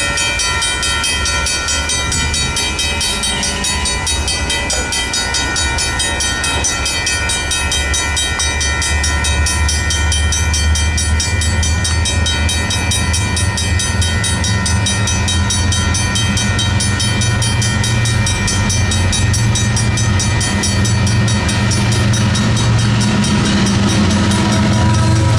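Railroad crossing warning bells ringing on and on: a WCH electronic bell and a Griswold mechanical bell on the gate signals. Under them, the low rumble of an approaching BNSF freight train's diesel locomotives grows louder through the second half.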